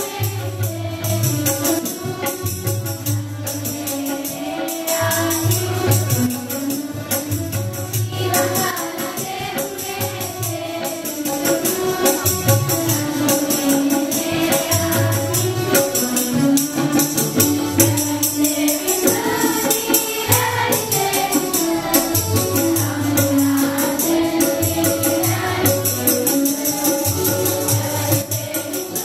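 A children's choir singing a Telugu Christian song together, over percussion keeping a fast steady beat and a pulsing low bass.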